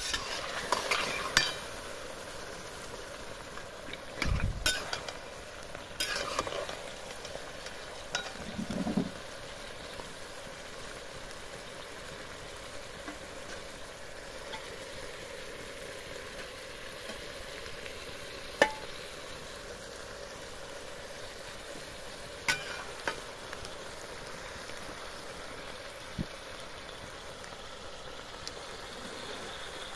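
Mutton and spinach curry sizzling and bubbling in a wok while a metal spatula stirs and scrapes it, busiest in the first several seconds. After that the steady sizzle goes on, broken by a few single sharp knocks of the spatula on the pan.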